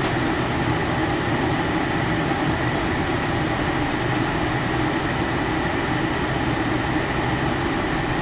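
Steady drone inside a motorhome's cab as it rolls slowly in a queue: engine and running gear at low speed, with a faint steady whine above them.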